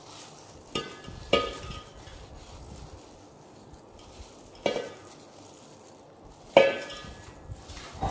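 Dry chana dal poured and scraped from a steel bowl into an aluminium pot, with four sharp metallic clinks as the bowl strikes the pot, each ringing briefly: two close together about a second in, one near the middle and one near the end.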